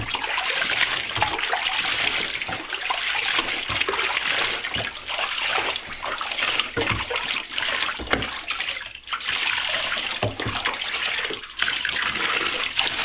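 Water running steadily in a bathtub and splashing as a cat's wet fur is rinsed and rubbed by hand, with many short splashes throughout.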